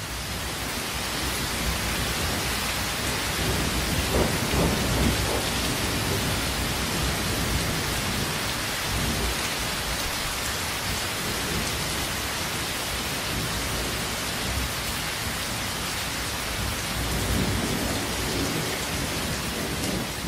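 Steady heavy rain with thunder rumbling, the thunder swelling about four seconds in and again near the end.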